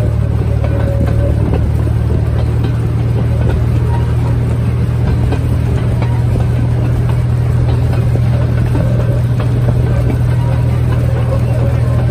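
The engine of a small heritage timber-railway train running steadily as it moves along, heard from on board: a loud, even low drone.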